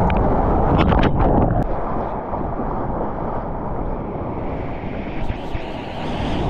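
Breaking-wave water rushing and splashing around a camera held at the surfer's mouth while riding a small wave, with wind buffeting the microphone. Sharp splashes in the first second and a half, then a steadier rush of whitewater.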